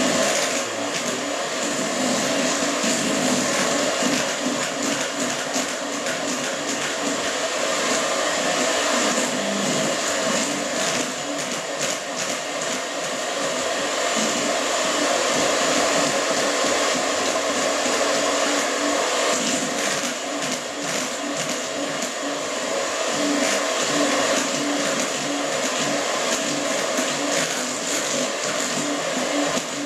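Electric mixer running steadily, beating chocolate cake batter.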